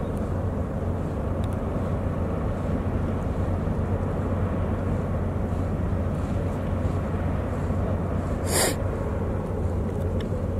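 Steady low drone of a large car ferry's diesel engines across the water as it manoeuvres in the harbour, with one brief sharp noise about eight and a half seconds in.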